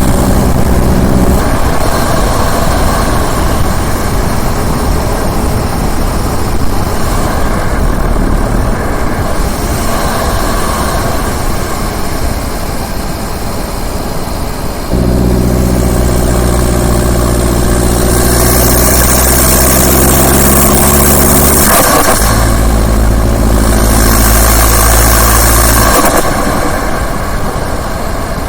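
Turbo diesel engine running, its revs raised and held about halfway through, then settling to a lower steady note. Twice in the later part a loud rushing hiss from the turbo and intake rises over the engine.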